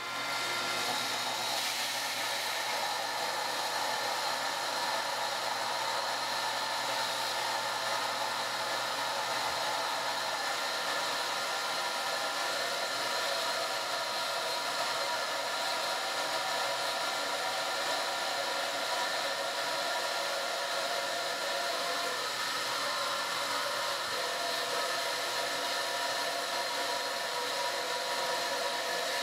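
Centrifugal pump running steadily, circulating water through a clear test reservoir: an even whir with a few steady tones that does not change.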